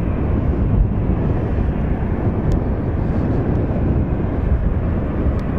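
Jet engines of a taxiing Boeing 737 running at idle: a steady low rumble.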